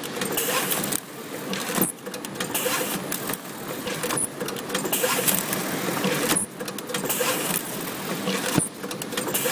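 Automatic packing machine handling plastic salad tubs, running in repeating cycles about every two seconds: a clattering mechanical rush with clicks over a steady hum.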